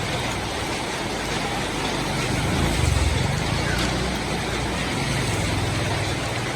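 Steady rain hiss, with a low rumble that swells briefly about three seconds in.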